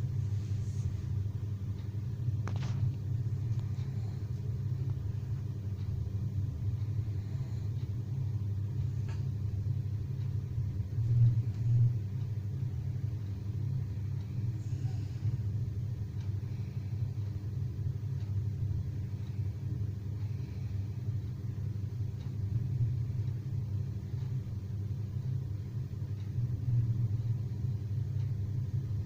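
A steady low rumble of room noise, holding the same low pitch throughout with a couple of slight swells.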